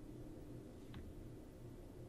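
Faint room tone: a low, steady hum with an even pulse, and one short faint tick about a second in.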